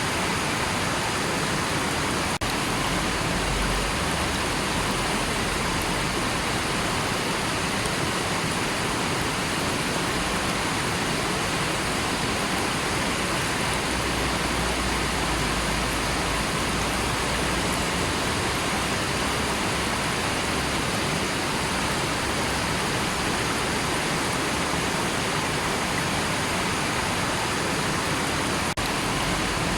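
River water rushing steadily, a dense even hiss of flowing water with no breaks.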